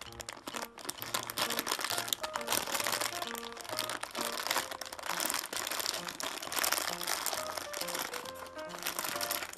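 Clear plastic bag of toy animal figures crinkling and crackling as it is handled and turned over. Background music with a repeating bass line plays throughout.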